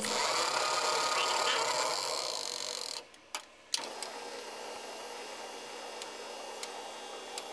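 Flatbed film editing table running, its motor and spinning film platters making a steady mechanical whir. The sound drops out briefly about three seconds in, with one click, then comes back quieter.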